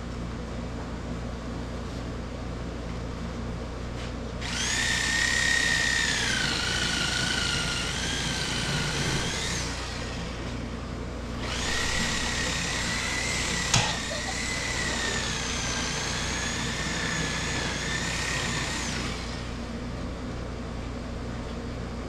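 Electric power tool motor running in two long stretches, a whine that sags and wavers in pitch as it works under load. A single sharp knock comes partway through the second run.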